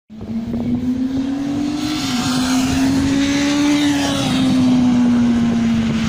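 Road traffic: a motor vehicle's engine drone holding one steady low pitch over tyre noise, dipping slightly in pitch about four seconds in as it passes.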